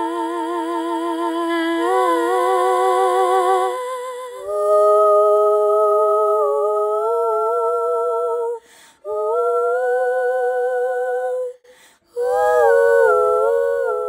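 Layered female voices humming a wordless melody in harmony, a cappella. It comes in four long held phrases with short breaks between them, the first with a marked vibrato.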